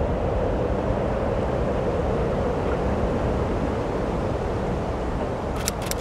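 Steady wind-like rushing noise with a hum around its middle, and a quick run of sharp clicks near the end.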